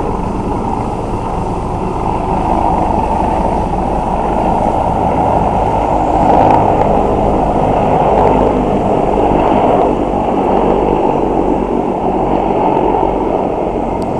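Low-flying military helicopters passing overhead: a steady, loud drone of rotors and engines that builds to its loudest around the middle, then eases a little.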